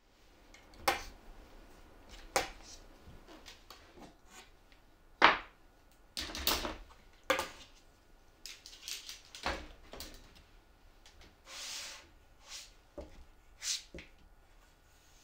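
One-handed bar clamps being released and taken off a glued plywood box: a string of irregular clicks and knocks as the clamp triggers let go and the clamps are handled and set down, with a short scrape near the end.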